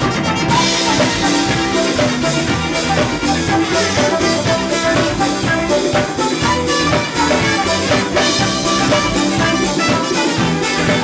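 A live band playing music with a steady drum beat.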